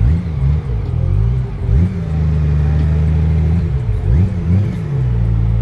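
Honda Gold Wing GL1800 flat-six engine running at low speed, its note rising and falling several times as the throttle opens and closes, then settling to a steady note near the end.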